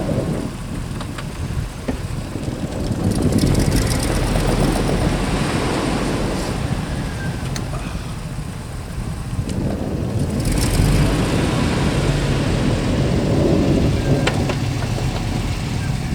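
Chevy pickup truck engine working hard in deep snow, swelling in two surges of throttle about three seconds in and again about ten seconds in.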